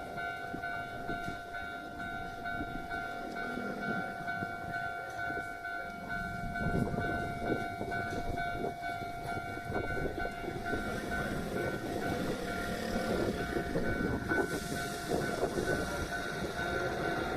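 Railway level-crossing warning bell ringing, its repeating electronic tone steady throughout. A Hankyu train runs over the crossing, its rumble growing from about six seconds in and joined by a rising hiss near the end.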